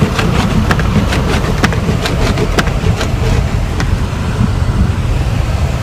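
Car driving on a snow-covered road: a steady low rumble of engine and tyres. Over it comes a quick run of light clicks and ticks, several a second, which stop about four seconds in.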